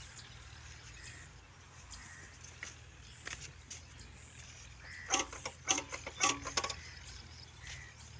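Birds calling, with a cluster of loud short calls between about five and six and a half seconds in, over a low steady hum.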